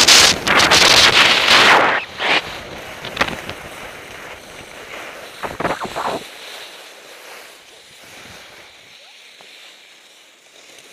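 Wind rushing over a body-worn action camera's microphone and skis hissing and scraping on packed snow during a downhill run. Loud for the first couple of seconds, then a few short scrapes, and the noise fades as the skier slows.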